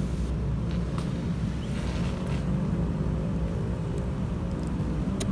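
Steady low rumble throughout, with a sharp click near the end as a disposable lighter is flicked to light paper under charcoal in a clay stove.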